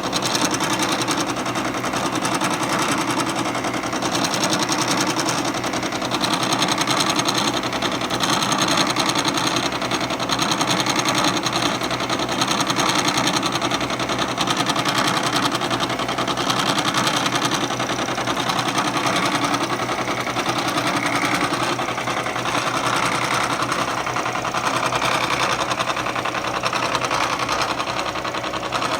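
Bridgeport vertical mill's spindle driving a 2½-inch six-insert carbide face mill through a steel gear rack under table power feed: a steady, rapid chattering cut with the machine's motor and feed running underneath.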